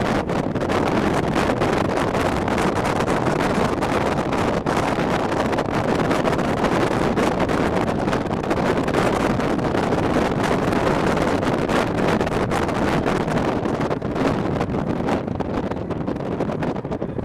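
Strong wind rushing across the microphone in a steady, loud noise with no let-up, easing slightly in its upper range near the end.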